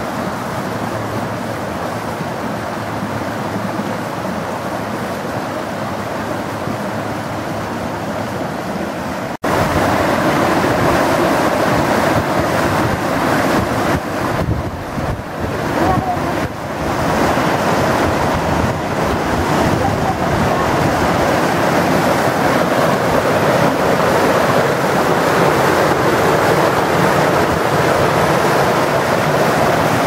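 Water of a small woodland stream cascade rushing steadily over rocks. After a cut about nine seconds in, it becomes louder and fuller as the white water is heard close up.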